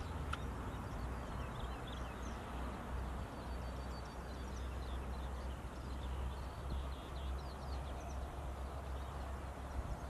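Outdoor marsh ambience: a steady low rumble under many faint, short chirps and trills of small birds, with a single sharp click about a third of a second in.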